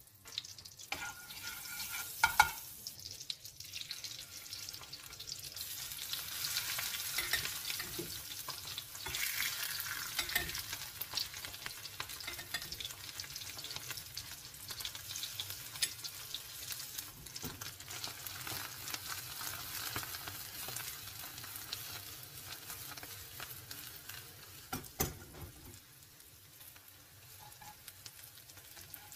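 Oyster mushrooms sizzling in butter in a nonstick pan, a steady frying crackle. A couple of sharp knocks come about two seconds in, and the sizzle eases a little near the end.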